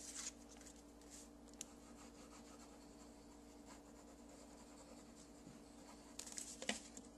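Quiet handling of cardstock and a glue bottle on a tabletop: a few faint paper scrapes and taps, then a short burst of louder rubbing and a click near the end, over a faint steady hum.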